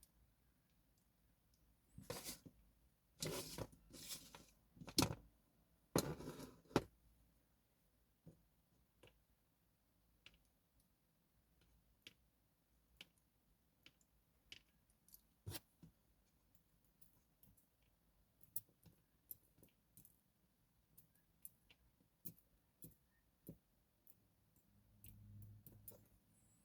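Small metal parts of a TESA T60 dimple lock clicking and scraping as the lock is taken apart. A few short scraping rattles come in the first seconds, then scattered light ticks and clicks.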